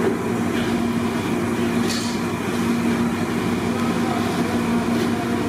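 Steady mechanical hum holding one low tone over a rushing noise, with a brief high hiss about two seconds in.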